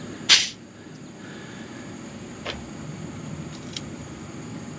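A short, sharp hiss of compressed air as the compression gauge's release valve is pressed, bleeding off the pressure held in the gauge line. Later come a couple of light clicks as the tester's hose and fittings are handled.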